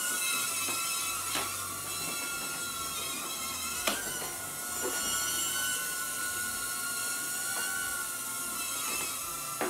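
Estes Proto X micro quadcopter in flight: its four tiny coreless motors and propellers give a steady high-pitched whine that wavers slightly in pitch as the throttle changes. A few sharp ticks are heard, the loudest about four seconds in.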